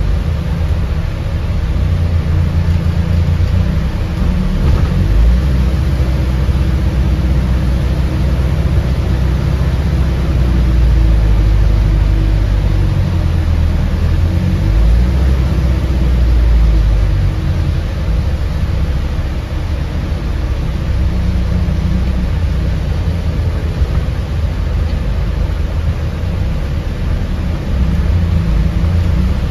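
Cabin noise of an Alexander Dennis Enviro400H City hybrid double-decker bus under way: a steady low rumble of the drivetrain and road noise, swelling and easing a little as the bus moves.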